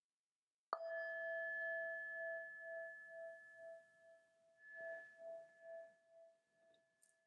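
A bowl-shaped meditation bell struck once about a second in, ringing with two steady tones that pulse gently as they slowly fade. It marks the close of the sitting meditation period.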